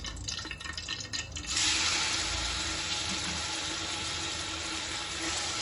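Raw mutton pieces going into hot oil in a pressure cooker: a steady sizzle starts suddenly about a second and a half in and keeps going, with a few light clicks just before it.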